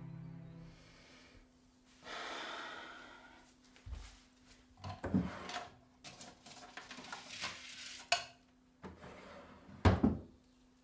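Objects being handled at a small wooden bedside cabinet: scattered knocks, rustles and thumps, the loudest a pair of thumps near the end.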